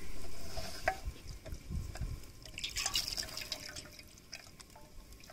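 Small splashes and drips of water as hands rinse and squeeze fire-roasted brinjal pulp over a metal bowl of water, louder in the first couple of seconds and then fading.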